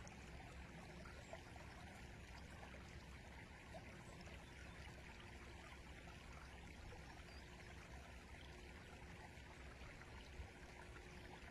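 Flowing river: a faint, steady rush of water.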